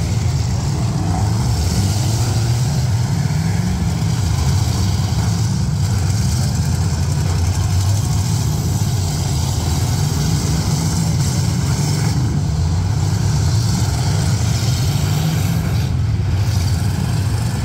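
Many demolition-derby cars' engines running and revving together in a steady, loud din.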